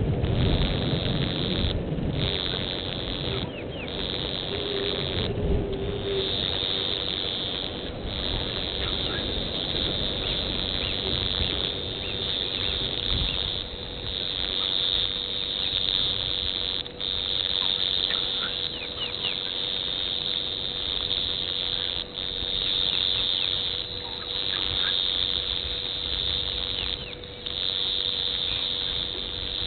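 A high-pitched chorus of insects shrilling steadily, cutting out for a moment every couple of seconds, over a low rumble and a few faint bird chirps.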